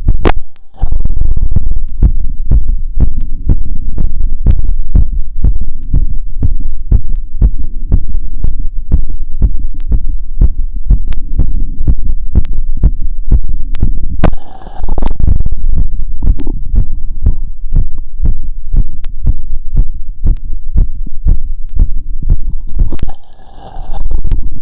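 Heartbeat heard through a stethoscope on the chest after a 2 km run: a steady run of low thumping beats. There are brief scraping breaks just after the start, about halfway through and near the end.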